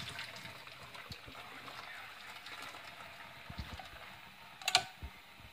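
Hot water and ramen noodles pouring from an enamel saucepan into a plastic mesh strainer in a stainless steel sink: a steady splashing and draining rush that slowly tapers off. A single sharp clack near the end.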